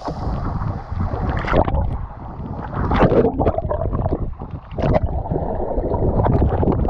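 Moving water sloshing and gurgling, with a heavy low rumble that rises and falls unevenly.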